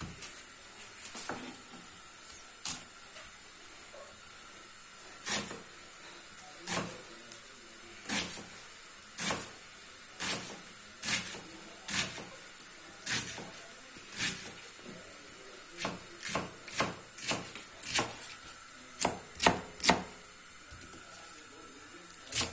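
Kitchen knife chopping fresh green cabbage on a wooden cutting board: sharp chops about one a second, coming quicker, two or three a second, for a few seconds near the end.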